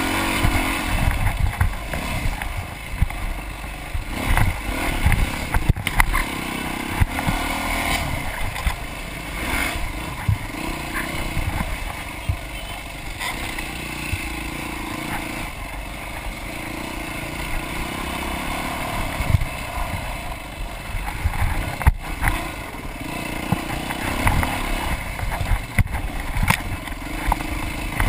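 Dirt bike engine running under load, its pitch rising and falling as the throttle is worked along a rough trail, with frequent sharp knocks and rattles as the bike hits bumps.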